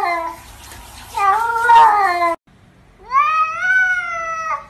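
House cats meowing: two drawn-out meows in the first half, then, after an abrupt break, a longer meow that rises in pitch and holds for about a second and a half before cutting off.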